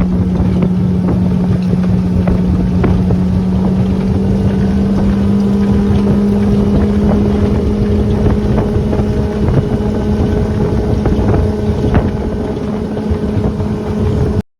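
A motor running steadily, its hum rising slightly in pitch partway through, with wind on the microphone and a few light knocks. The sound cuts off abruptly near the end.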